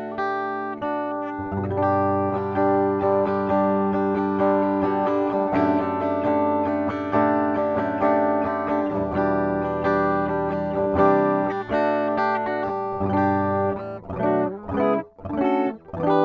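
Gibson SG Standard electric guitar on its bridge pickup, played with a clean tone: ringing chords that sustain, breaking into short, separate picked notes near the end.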